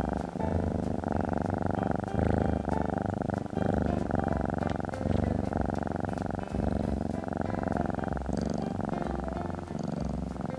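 Domestic cat purring continuously: a fast, even pulse that eases briefly about every one and a half seconds and then swells again.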